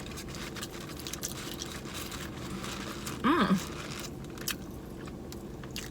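Close-miked chewing and biting, with many small wet clicks of the mouth, and a brief hummed voice sound a little over three seconds in.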